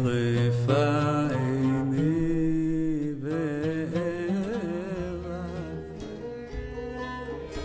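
Music: a slow melody with a wide vibrato over a low held drone, growing softer in the second half.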